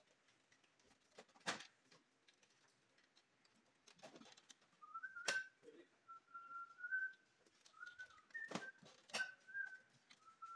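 A person whistling a tune in short, wavering phrases from about halfway through, over scattered sharp knocks and clicks.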